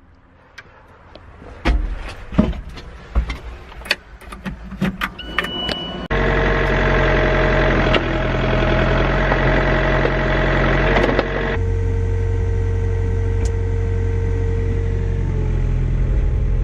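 A few scattered knocks and clicks, then about six seconds in an excavator's diesel engine comes in suddenly and runs steadily, its tone shifting about halfway through.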